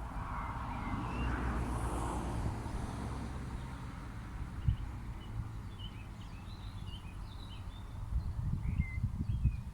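Outdoor nature sounds: small birds chirping in short, scattered calls over a low steady rumble, with a swell of noise in the first few seconds and a few low thumps near the end.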